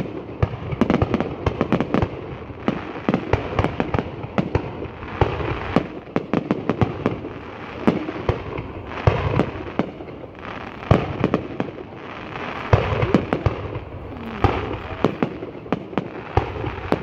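Fireworks going off in a dense, continuous barrage, with rapid bangs and crackles overlapping several times a second.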